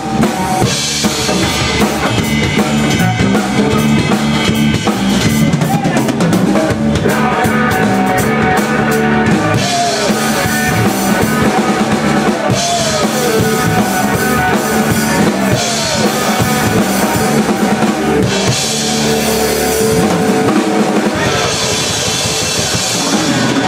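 Live rock band playing an instrumental passage: a drum kit with bass drum, snare and repeated cymbal crashes under electric guitars, one of them playing a lead line with bending notes.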